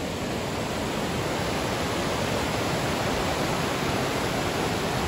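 Mountain river rushing white over a rocky cascade, a steady, unbroken rush of water.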